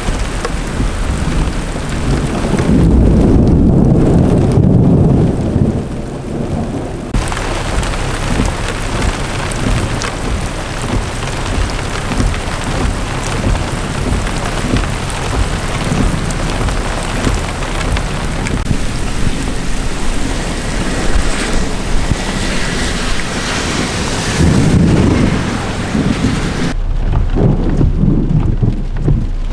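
Heavy thunderstorm rain pouring steadily, with deep thunder rumbling twice: a long roll a few seconds in and a shorter one near the end.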